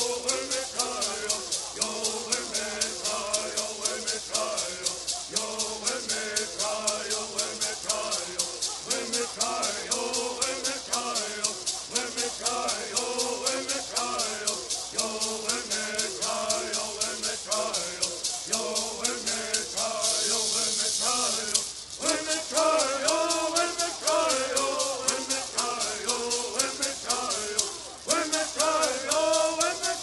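Group of men singing a bird song in unison while shaking gourd rattles in a fast, steady beat. About twenty seconds in the rattles shake continuously for a couple of seconds, and the song breaks briefly twice before going on.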